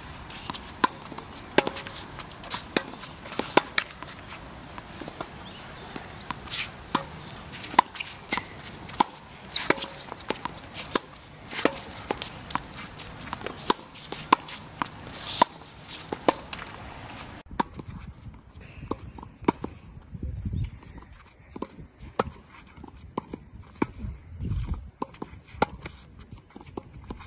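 Tennis rally on a hard court: rackets striking the ball and the ball bouncing, heard as a run of sharp pops with footsteps on the court between them.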